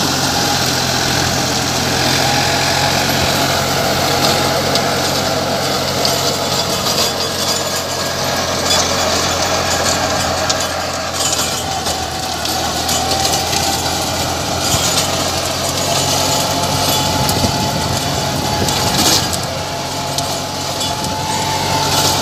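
New Holland tractor's diesel engine running steadily under load while driving a rotavator that churns through dry soil, with a steady high whine over the engine note.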